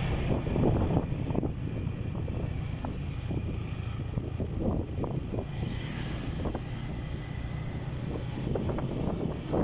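Wind buffeting the microphone of a rider on a moving motor scooter, over the low, steady running of the scooter's engine.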